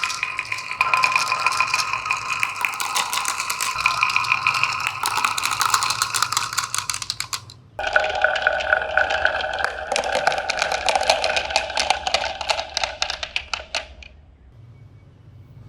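Marbles rolling and clattering down a HABA wooden marble run: a dense, rapid stream of clicks with a ringing tone. It cuts off abruptly about halfway, starts again with a lower ring, and dies away shortly before the end.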